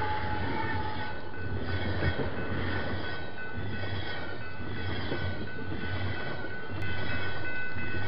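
Empty ethanol freight train's cars rolling past with a steady rumble of wheels on rails. A louder ringing tone joins about seven seconds in.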